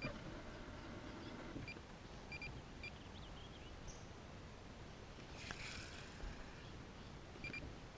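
Faint outdoor ambience with several short high chirps, and a brief hiss of noise about five and a half seconds in.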